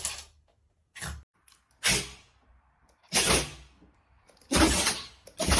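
A puppy sneezing repeatedly: about five short, sharp sneezes a second or so apart, with quiet between them.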